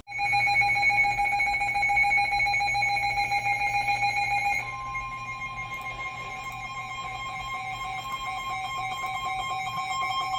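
Emergency Alert System attention signal from a broadcast: a steady electronic alert tone. A little under halfway through it shifts to a higher tone and gets quieter.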